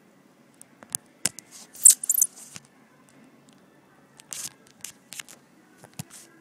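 Handling noise of a phone being moved and set in place: a series of clicks and short rustling scrapes against the microphone, the loudest about two seconds in, with a few more near the end.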